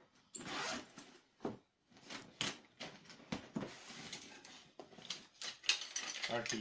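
A plastic bag rustling and crinkling in irregular bursts as hands rummage inside it.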